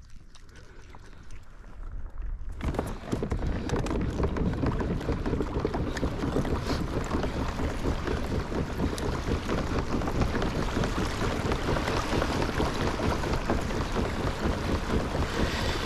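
Steady rush of water along the hull of a moving fishing kayak, with wind buffeting the microphone, starting about two and a half seconds in.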